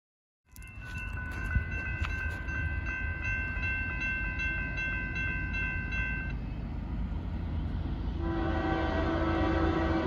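Railroad crossing bell ringing over a low rumble, stopping about six seconds in. About two seconds later the approaching locomotive's air horn starts blowing and holds to the end.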